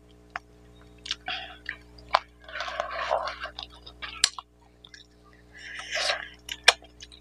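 Close-miked chewing of rice and mutton curry eaten by hand: wet, squishy mouthfuls punctuated by sharp lip smacks and clicks, loudest in stretches about three and six seconds in.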